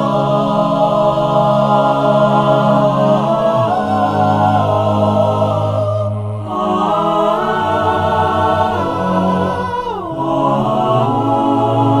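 Unaccompanied choir singing long held chords in a slow, chant-like style, the chord shifting every few seconds; a little before the end the upper voices slide down together into a new chord.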